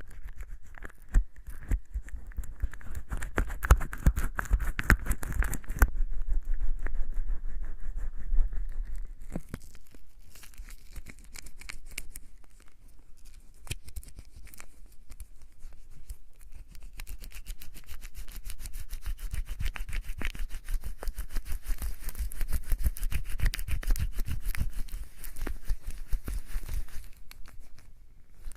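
Wet hands rubbing together in soap lather from a bar of soap: a dense, irregular run of small wet clicks and crackles, louder in stretches and quieter around the middle.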